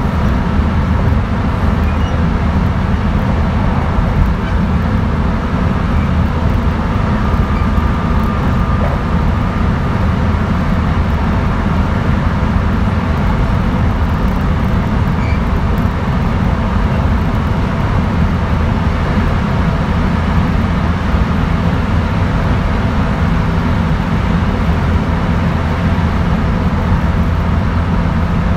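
JR West 223 series 1000 subseries electric train running at a steady speed: an even rumble of wheels and running gear that does not rise or fall in pitch.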